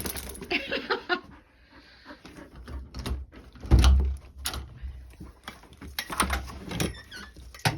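A dog moving about, with scattered knocks and clicks and one heavy thump about four seconds in.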